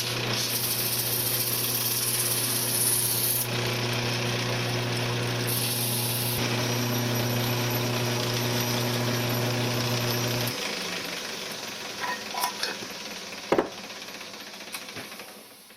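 Wood lathe motor running with a steady hum, and twice a loud hiss of sandpaper against the spinning workpiece. About ten seconds in the motor is switched off and the sound fades away, with a few small knocks.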